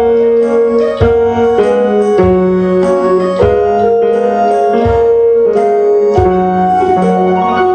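A simple, slow piano melody played note by note with a computer-played accompaniment of held bass notes underneath.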